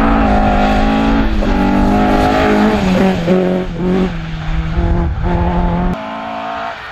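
Ford Escort Mk2 rally car's engine at high revs through a gravel bend, its pitch dropping and climbing in steps several times with lifts of the throttle and gear changes. About six seconds in it cuts off sharply and a second rally car's engine follows, quieter and farther away.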